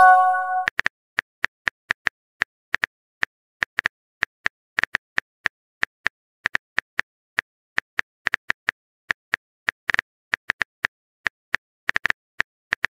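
Simulated phone-keyboard typing clicks, irregular, several a second, as the next chat message is typed. It opens with the end of a short chime of a few notes, the sound of the previous message arriving.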